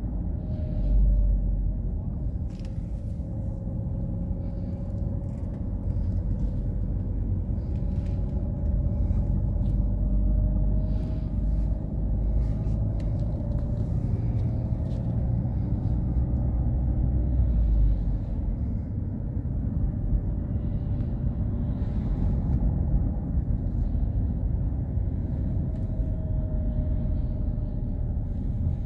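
Engine and road rumble heard from inside a car's cabin while driving slowly, with a faint tone that drifts gently up and down with the engine speed.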